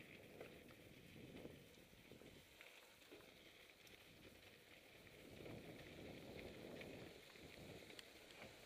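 Faint rumble and rattle of a mountain bike rolling down a dry dirt and rock singletrack, with scattered small clicks; a little louder about halfway through.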